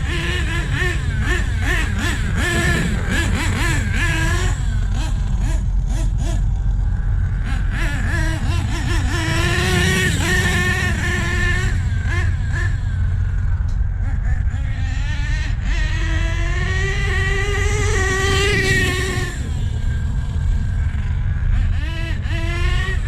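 Nitro-powered HPI Savage RC truck's small glow-fuel engine revving hard as the truck is driven, its whine rising and falling again and again with the throttle.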